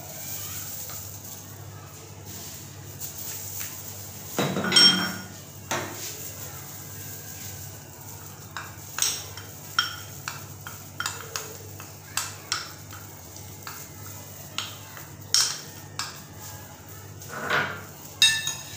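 Kitchen utensils and dishes clinking and knocking: scattered sharp taps, with two longer clattering rattles, one about four and a half seconds in that rings briefly and one near the end, over a low steady hum.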